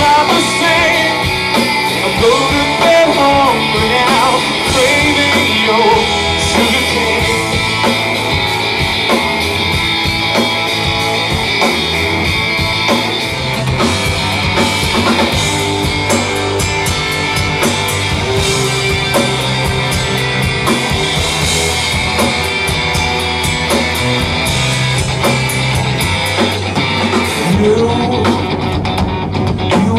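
Rock band playing live: electric guitar and drum kit, with a singer's voice.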